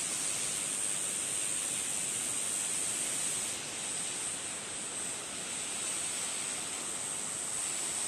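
Tall, narrow waterfall plunging down a rock cliff: a steady rushing hiss of falling water.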